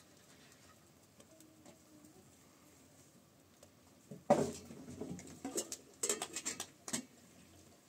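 Pigeons cooing faintly. About four seconds in there is a loud knock, followed by a quick run of sharp taps and clatters.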